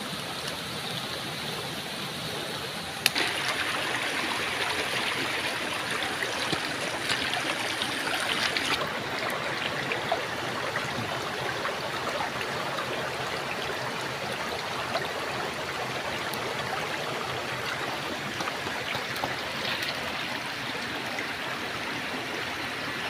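Shallow stream flowing over stones, a steady rushing, with a single brief knock about three seconds in.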